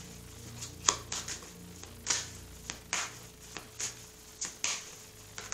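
A deck of oracle cards being shuffled by hand: a string of short, sharp card snaps and taps at an irregular pace, about two a second.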